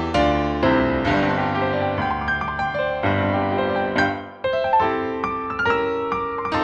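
Background piano music: a keyboard playing a gentle run of struck notes and chords, with a short break in the phrase about four seconds in.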